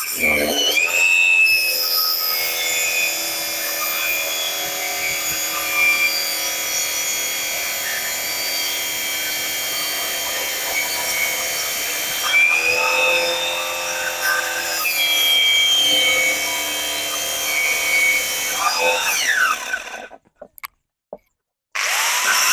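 Electric drill fitted with a wood-cutting disc, running and cutting plywood. Its motor whine dips in pitch several times as the blade bites into the wood, stops about twenty seconds in, then starts again just before the end.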